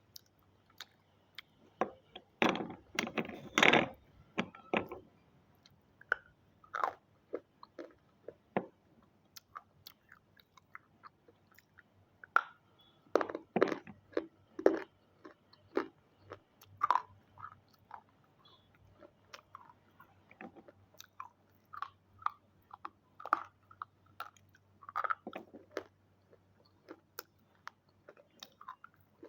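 Close-up biting and chewing of brittle red triangle pieces: sharp crunches and crackles, thickest about two to five seconds in and again around thirteen to fifteen seconds, with scattered single cracks between.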